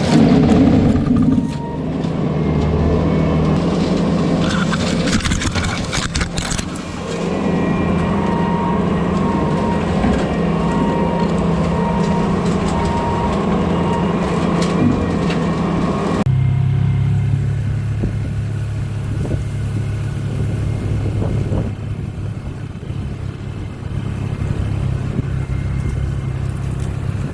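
Bobcat T650 compact track loader's diesel engine running steadily under load, with a faint beep repeating about once a second in the middle. About 16 seconds in the sound changes abruptly to a deeper, steadier engine drone.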